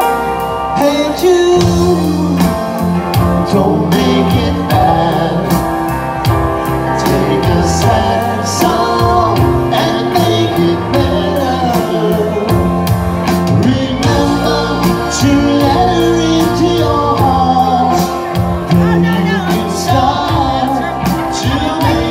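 Live rock band playing electric guitars, bass and drums with a lead vocal singing over a steady beat.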